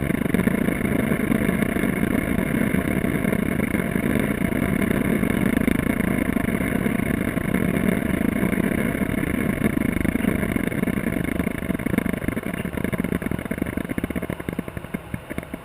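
Aircraft engine running at takeoff power, a loud steady drone that eases slightly near the end.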